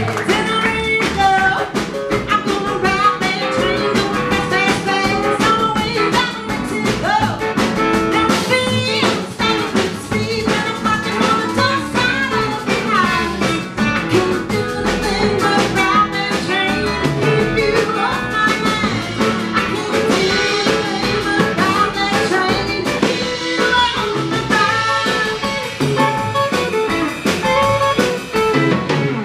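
Live band playing a bluesy song: a woman singing lead over guitars, upright bass and drum kit.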